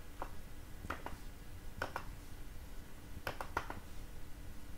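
Computer mouse clicking, about six short clicks spaced unevenly, some in close pairs, as text is selected and pasted, over a steady low room hum.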